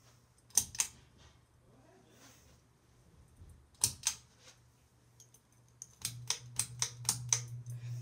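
Hampton Bay Littleton 42-inch ceiling fan running with a low motor hum that grows louder about six seconds in. Sharp clicks come twice in pairs, then as a quick run of clicks near the end.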